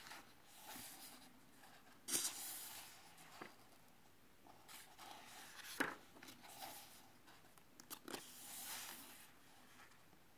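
Pages of a paperback book being turned one after another: several soft paper rustles, a few of them starting with a sharp flick.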